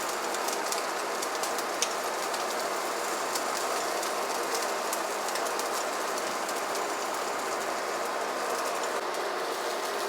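Lobster cakes sizzling in a frying pan: a steady hiss with scattered crackles and one sharper pop about two seconds in.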